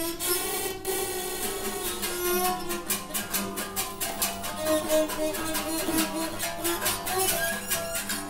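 Acoustic guitar played with a bow: sustained bowed notes that slide in pitch. Over the second half a fast, irregular run of sharp clicking taps joins in.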